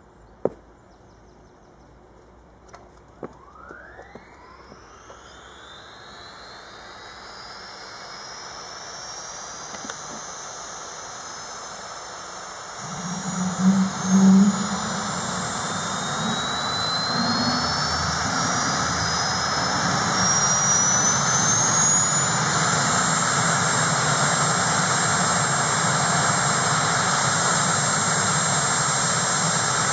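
Sikorsky S-61N helicopter's twin turboshaft engines spooling up: a whine that rises in pitch and grows steadily louder. About thirteen seconds in, a deeper running sound joins it. The whole then settles into a loud, steady whine with a high tone held constant.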